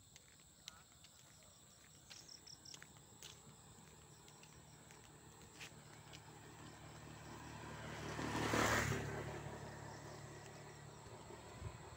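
A small motor vehicle approaching along the road, passing close by about nine seconds in and fading away, its engine humming steadily. Crickets chirp faintly in the background.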